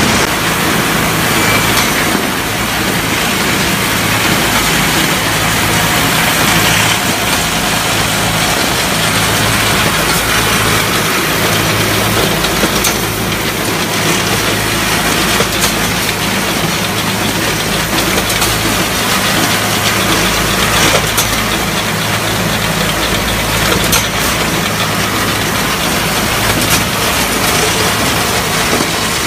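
Wire straightening and cutting machine running steadily: a low motor hum under a loud, even mechanical whir, with a few sharp clicks now and then.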